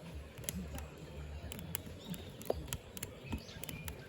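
Firewood burning in a Hillscam Firenado Large fire pit, crackling with irregular sharp pops over a low rumble.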